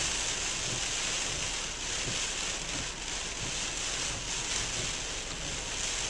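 Steady rush of wind and heavy rain on a parked car, heard from inside the cabin, with heavy surf breaking beyond.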